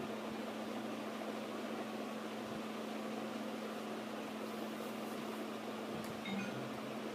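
Steady room hum and hiss with one constant low tone, like a running fan or electrical background noise. A short, faint blip comes a little after six seconds in.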